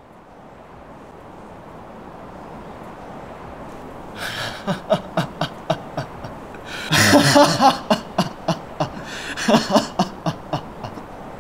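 A man laughing in rhythmic bursts of about three or four a second. It starts about four seconds in, is loudest around seven seconds, and trails off near the end.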